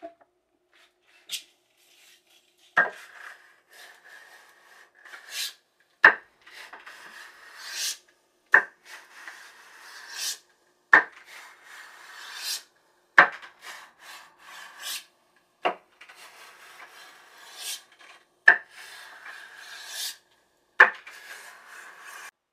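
Slow, even strokes of a hand file across the wooden body of a plane, about one every two and a half seconds. Each stroke starts with a sharp scrape and trails off in a hiss, eight strokes in all.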